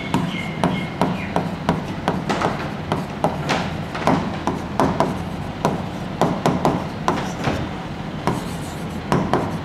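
Marker pen writing on a whiteboard: a run of quick rubbing strokes and small taps as letters are written, with a brief squeak about half a second in.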